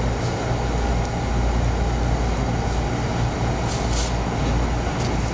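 A steady low mechanical hum, with a few light clicks about four seconds in.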